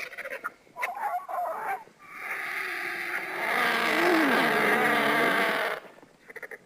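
Vulture calls used as a pterosaur sound effect: a few short calls in the first two seconds, then one long harsh call of about three and a half seconds that stops near the end.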